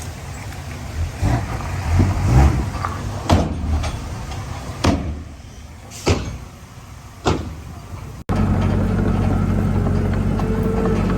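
Diesel engine of heavy earthmoving machinery running, with a series of sharp metallic clanks and knocks. About eight seconds in the sound cuts abruptly to a steadier, louder engine drone.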